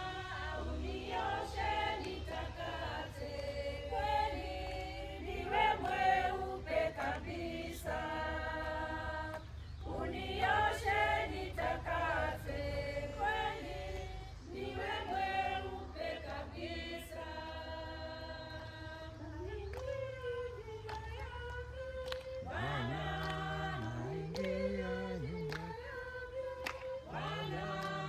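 A group of voices singing a Swahili church hymn unaccompanied, in held, phrase-by-phrase lines.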